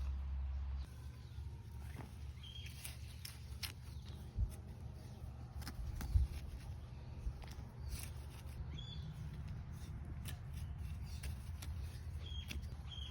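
Outdoor countryside sound: a bird's short chirp repeats every few seconds over scattered clicks and crackles and a low rumble, with two brief low thumps in the middle.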